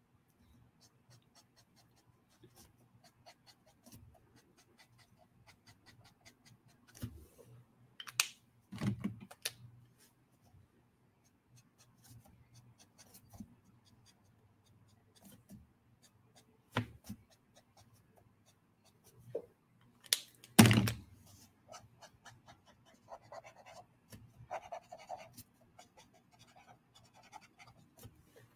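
Faint strokes of a Copic marker on sketchbook paper, with scattered small clicks and a few louder thumps, the loudest about two-thirds of the way through.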